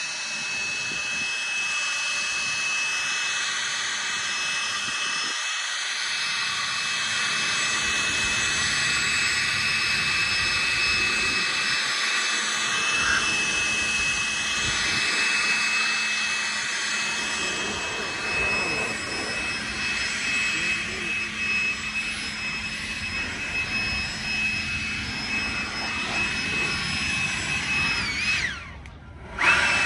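Handheld leaf blower running steadily, a high motor whine over rushing air, blowing water off a freshly washed car. Near the end it stops for about a second and starts again.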